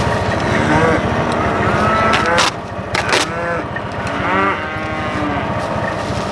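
Black Angus cattle mooing several times over a vehicle engine running steadily close by. Two sharp knocks come about two and a half and three seconds in.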